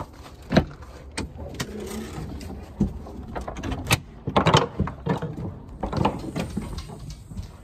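A glass storm door being opened and walked through: a run of latch clicks, knocks and handle rattles mixed with footsteps and clothing rustle.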